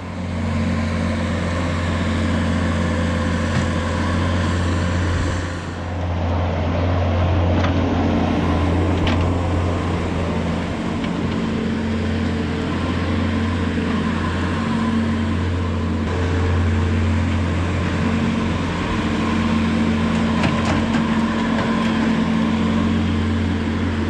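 Bobcat skid steer's diesel engine running steadily as it works a squeegee scraper along the barn alley, with a short dip in loudness about six seconds in.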